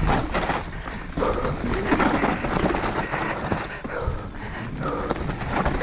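Enduro mountain bike running fast down a rough dirt forest trail: tyres on dirt and roots, with the chain and frame rattling over the bumps and wind buffeting the helmet camera. The rider's hard, effortful breathing comes through now and then.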